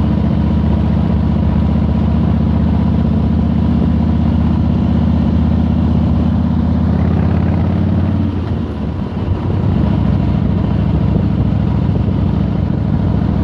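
Harley-Davidson V-twin motorcycle engine running steadily under way; its note drops briefly about eight seconds in, then picks back up.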